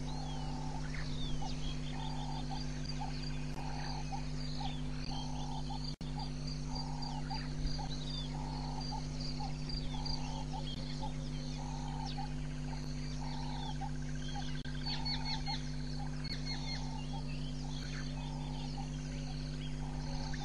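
Bush soundscape at dawn: many small birds chirping, and a low call repeating steadily about once a second in a long-note, short-note pattern. A steady low hum runs underneath.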